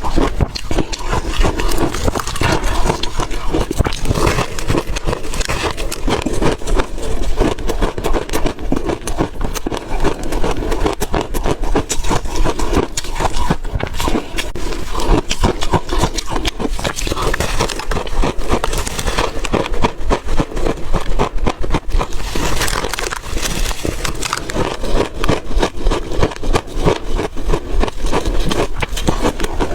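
Refrozen ice cake being bitten and chewed: continuous dense crunching and crackling of the ice.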